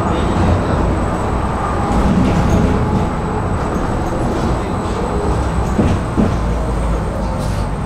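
Tram running along its rails with a steady low rumble, and a couple of short knocks about six seconds in.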